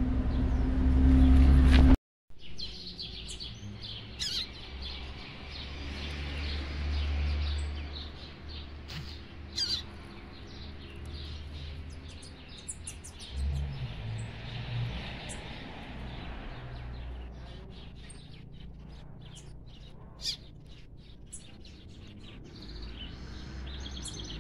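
About two seconds of loud low rumble, then small caged birds chirping, with short, scattered high calls over soft background noise.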